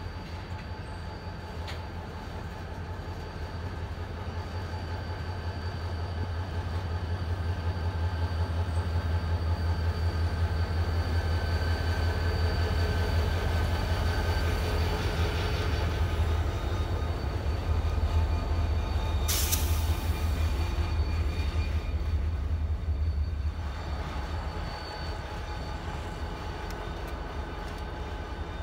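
Two helper diesel locomotives running hard at the rear of a freight train, pushing it up a grade. Their engines make a steady low drone that builds as they pass close by, then drops away near the end. Thin steady squealing tones from the wheels ride above it, and there is one sharp crack about two-thirds of the way in.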